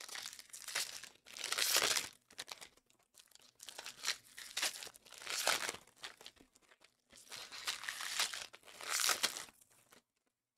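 Plastic shrink-wrap being torn and crumpled off sealed trading-card boxes, a crinkling rustle in bursts that is loudest three times, about two, five and a half, and nine seconds in.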